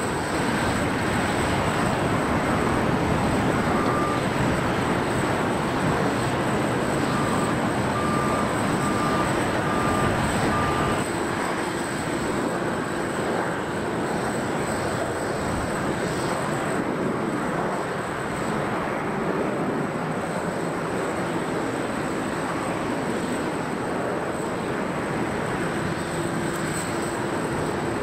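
Steady jet aircraft noise at an airport: a continuous rush with a thin high whine, easing slightly about eleven seconds in. For a few seconds before that, a short electronic beep repeats a little faster than once a second.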